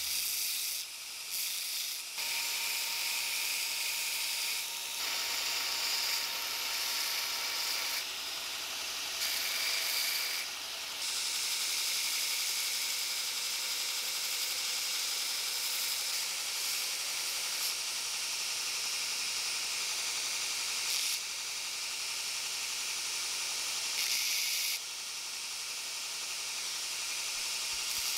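Steel key blank being ground on a 2x72 belt grinder: a steady hissing grind of the abrasive belt against the metal, shifting in level several times as the piece is pressed and repositioned.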